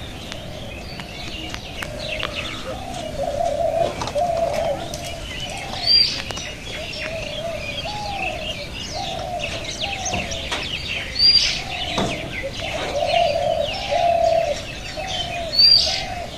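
A dove cooing in a long run of short, evenly repeated notes, with smaller birds chirping above it and three louder sharp calls a few seconds apart.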